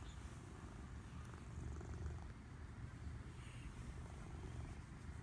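Domestic cat purring steadily while being stroked: a faint, low, fluttering rumble.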